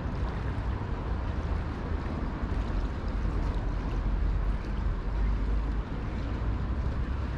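Wind buffeting the microphone outdoors: a steady low rumble that swells and eases, with a lighter hiss above it.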